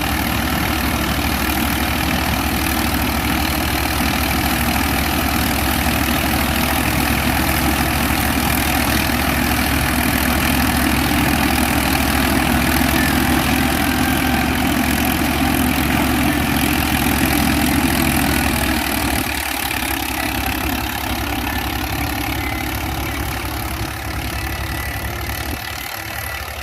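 Gill 588 tractor-mounted combine harvester running on its Swaraj 963 tractor, with the engine and the threshing machinery making a steady drone. About two-thirds of the way through, the deep low hum drops away and the sound becomes a little quieter.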